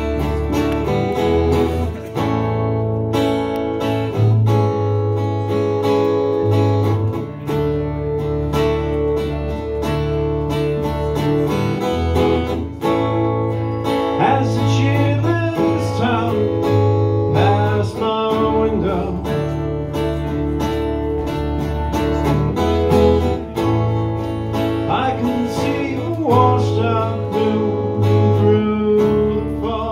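Live duo of strummed acoustic guitar and electric bass playing a song. A man's singing voice comes in about halfway through.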